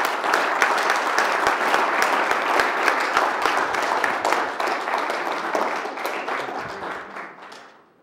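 Audience applauding, many hands clapping at once, dying away over the last two seconds.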